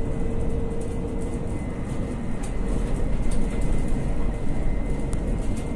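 Inside a MAN Lion's City hybrid city bus driving over a rough road: steady low running noise with a thin steady whine, and scattered short rattles and knocks from the bus's body and fittings.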